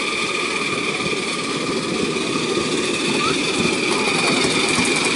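Miniature live-steam locomotives in steam: a dense run of rapid beats under a continuous hiss with steady high tones. It grows a little louder about three seconds in.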